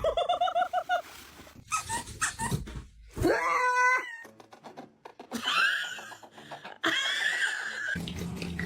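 Several separate pet animal calls, each a short pitched cry: a wavering one at the start, another about three seconds in, and higher calls that rise and fall from about five to eight seconds in.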